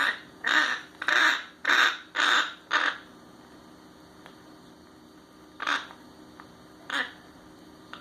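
A bird giving short, harsh calls: six in quick succession, about two a second, then two more spaced out near the end.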